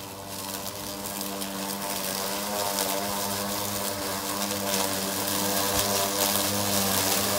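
Two EGO battery-powered self-propelled lawn mowers running, their electric motors humming steadily while the spinning blades cut through tall, dense grass with a rushing hiss. The sound grows gradually louder as the mowers come closer.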